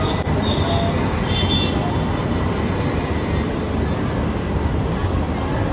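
Steady rumble of road traffic, with a few faint high tones in the first two seconds.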